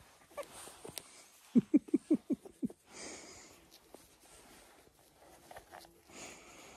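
Rustling and scuffing of a small puppy squirming while being stroked on a lap. About a second and a half in comes the loudest sound: a quick run of about seven short voiced pulses, each falling in pitch.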